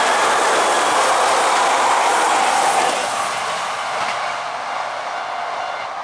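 Kintetsu electric train passing close by, its wheels running and clattering over the rails. The sound then fades steadily from about halfway through as the train moves away.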